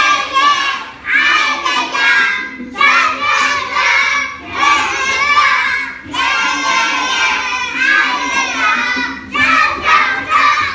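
A group of young children singing together in phrases with short breaks between them, over a faint backing track.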